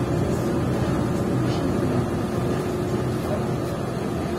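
Steady engine and road drone inside a moving city bus, with a steady hum running through it.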